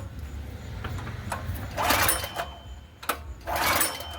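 Predator 212 single-cylinder engine cranked twice on its recoil pull-starter, each pull a short rattling whir of about half a second, without catching: the engine won't start. A few sharp clicks fall between the pulls.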